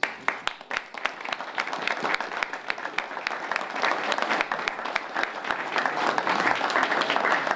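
A small group of people applauding. The clapping starts abruptly as separate claps and within about a second thickens into steady applause.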